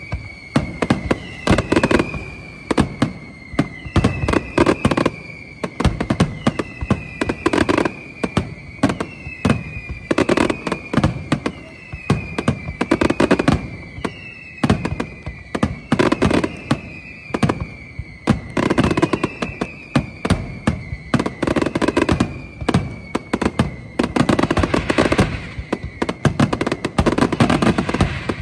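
Fireworks display: aerial shells bursting in rapid, overlapping bangs, with a high whistle that slides slightly down in pitch starting about once a second. The bangs thicken into a dense volley near the end.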